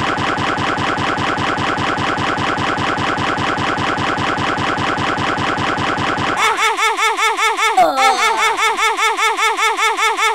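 Thirty Dollar Website sequencer playing one sound sample over and over in a fast, even stream, many times a second. About six seconds in the deep low part drops out and a different sample takes over, repeating as quick upward chirps, with a few falling glides a little later.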